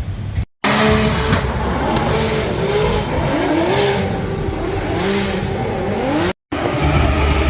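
Drift car engines revving hard, the pitch climbing and dropping again and again. The sound cuts out for an instant about half a second in and again near the end.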